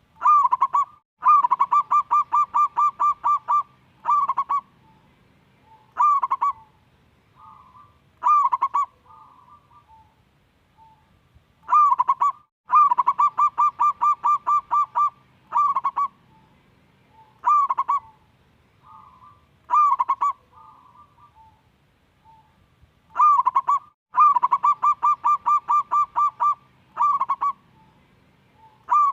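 Zebra dove (perkutut) singing its cooing song three times over. Each phrase opens with a single coo, then a quick run of about ten clipped coos, then three spaced single coos, with soft low coos between phrases.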